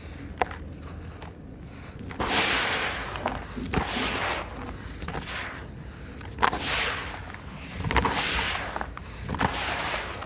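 Handfuls of crumbly sand-cement mix are squeezed and dropped back into a bowl. There are about five gritty pours, each under a second long, with sharp ticks from lumps landing.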